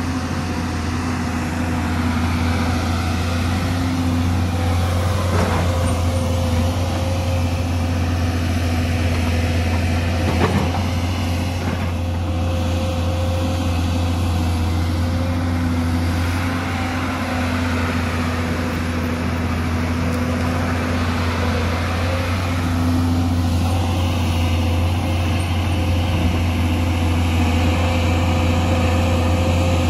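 Hyundai crawler excavator's diesel engine running steadily under load as it digs soil and rock, with two short sharp knocks from the bucket striking.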